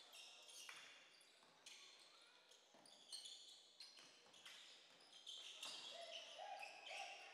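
A basketball game on a hardwood gym floor, heard faintly: the ball bouncing and sneakers squeaking in short high-pitched squeals as players run and cut.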